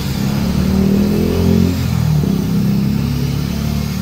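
Handheld electric drill running under load as it bores into the steel tubing of a welded sign frame, its pitch wavering as the bit bites.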